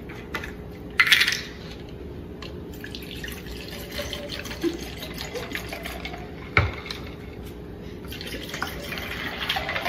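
Lemonade poured from a plastic jug into cups of ice: a steady pouring and filling sound. There is a short sharp sound about a second in and a knock about six and a half seconds in.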